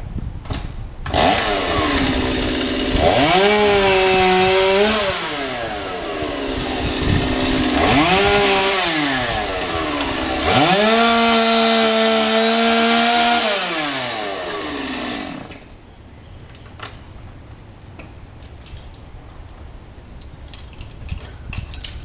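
Chainsaw cutting into a tree limb, revved up to full throttle three times with the engine pitch dropping back between cuts. It stops about two-thirds of the way through, leaving only faint clicks and knocks.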